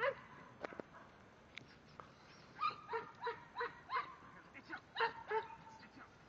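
A herding dog barking as it works a small bunch of cattle. There is one bark at the start, a quick run of about six barks a few seconds in, and three more about a second later.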